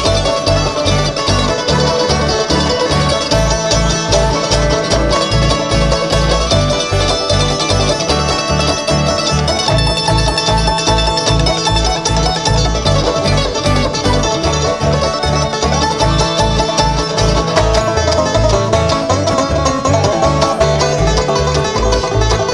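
Bluegrass band playing an instrumental stretch: fast plucked banjo and guitar over a steady, pulsing bass line.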